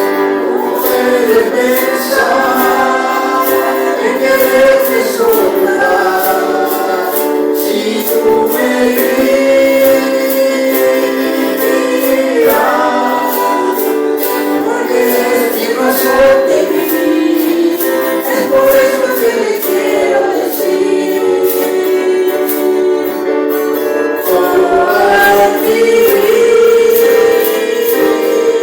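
Group of voices singing a worship praise song in unison, held melodic lines over a steady beat of bright percussion hits. The sound is thin, with almost no bass.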